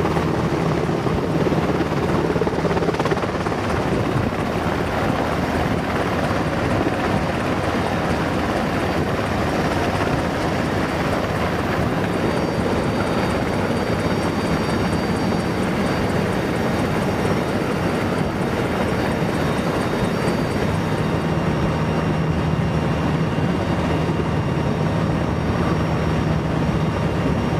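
Steady, loud drone of the MC-130J tanker's four turboprop engines and rushing airflow, heard inside the cabin at an open door in flight. It runs without a break.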